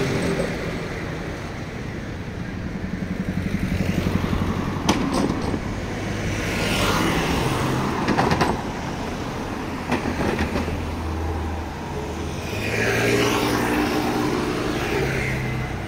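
Street traffic: cars and other motor vehicles passing one after another, engines running, swelling as each goes by. A sharp click about five seconds in.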